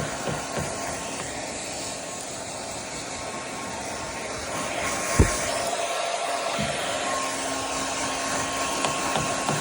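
Hair dryer blowing steadily on its cool setting, a rushing of air with a faint steady motor whine. A sharp thump about five seconds in.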